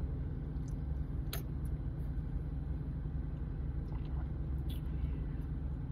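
Steady low rumble of an idling car engine heard inside the cabin, with one faint click about a second and a half in.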